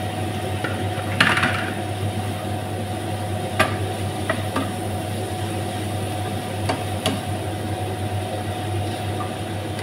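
Wooden spatula stirring and tossing instant noodles and vegetables in a frying pan, with a steady sizzle and a few sharp knocks of the spatula against the pan, over a constant low hum.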